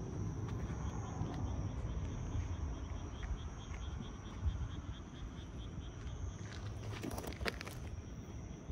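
Night insects trilling steadily in a high drone, with a row of quick chirps a few seconds in, over a constant low rumble. A brief burst of rustling knocks comes about seven seconds in.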